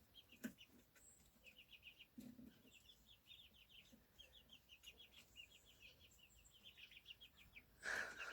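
Young chickens chirping softly in quick high runs of notes, with a louder call near the end.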